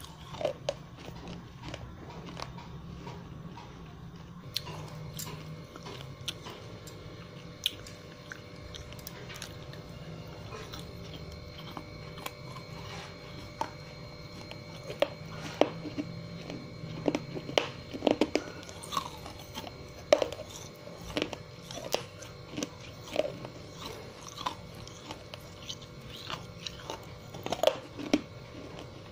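Close-miked chewing of a hard, brittle earthen material such as slate pencil or baked clay, with sharp irregular crunches that come thicker and louder in the second half.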